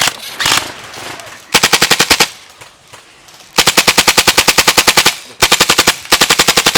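Airsoft rifle firing on full auto at about fifteen shots a second. A short burst comes about a second and a half in, then two long bursts in the second half, after a few single pops at the start.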